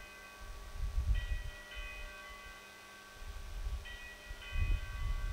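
Altar bells rung at the elevation of the chalice during the consecration: a cluster of high chiming tones struck about a second in and again about four seconds in, each left to ring on, over a low rumble.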